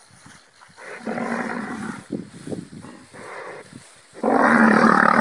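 A cow bellowing in distress over her calf, which a large snake has seized: one call about a second in, then a louder, longer bellow starting about four seconds in.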